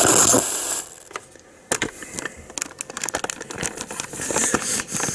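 RadioShack portable radio playing with a hissy sound that cuts off under a second in, followed by a run of irregular clicks and crackling rustle from the camera being handled and turned around.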